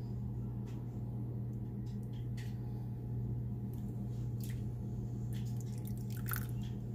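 Water poured from a small plastic cup into a glass baking dish around beef short ribs, heard as a few short splashes and clicks over a steady low hum.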